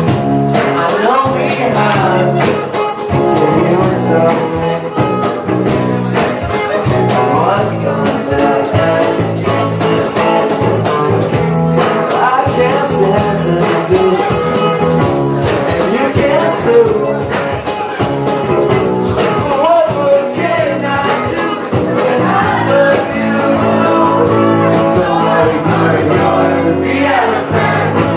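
Live unplugged rock band playing a passage without sung lyrics: drums, bass guitar, guitar and keyboards with a steady beat and wavering melodic lines over it. The high end thins out near the end.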